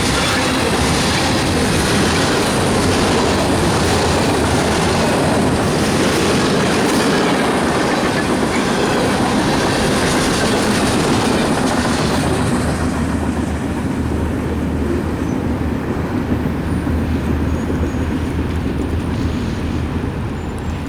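Freight train of coal cars rolling past, steel wheels clicking over the rail joints in a regular rhythm over a steady rumble. The sound fades about twelve seconds in.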